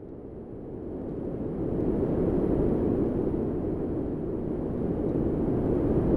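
Low rumbling noise, like a distant roar of wind or a jet, swelling up over the first two seconds and then holding steady: the sound bed of a production-company logo sting.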